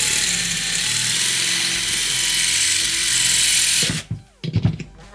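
Cordless drill running as its bit bores through the metal passive-radiator plate of a JBL Charge 4 speaker: a steady hiss with a motor whine that rises slightly about a second in. The drill stops about four seconds in, followed by a few knocks.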